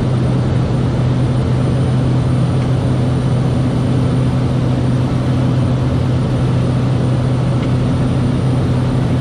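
Cessna 208B Caravan's PT6A turboprop engine and propeller running steadily in flight, heard inside the cockpit: a constant low hum over an even rush of noise.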